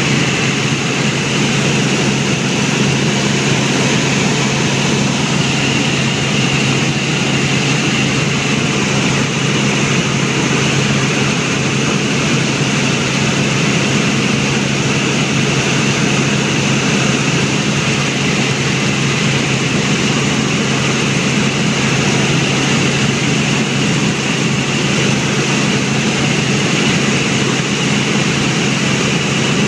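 Helicopter in steady flight: loud, unchanging rotor and engine noise with a constant low hum.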